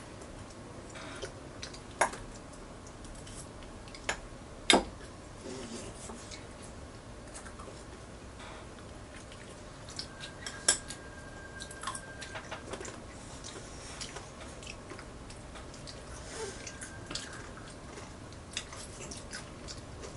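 A fork and metal chopsticks clicking and scraping on plastic plates, with scattered light clacks and a few louder ones, and children chewing.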